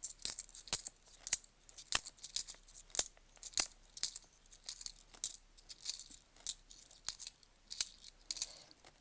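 10p coins clicking against each other as they are handled and sorted one at a time: sharp, bright clicks coming irregularly, about two or three a second.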